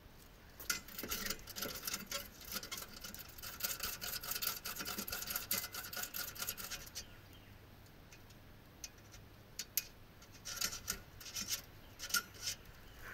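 Rapid scratchy scraping and brushing strokes of a small cleaning tool clearing out a clogged part of a gas pack furnace, in two spells with a pause between.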